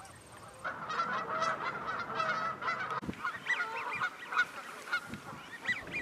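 A flock of waterfowl calling continuously, with many overlapping calls. In the second half, short whistled calls rise and fall in pitch.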